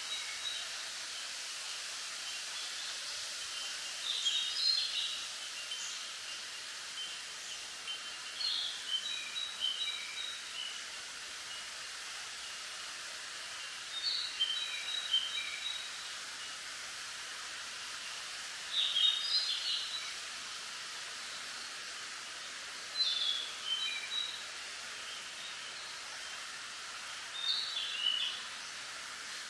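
Wind rustling bamboo leaves as a steady hiss. A bird calls in short chirping phrases, six times, about every four to five seconds.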